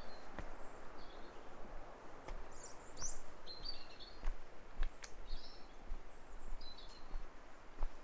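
Steady rush of distant Atlantic surf below the cliffs, with small birds giving short, high chirps on and off. A few light footsteps on the trail tick through it.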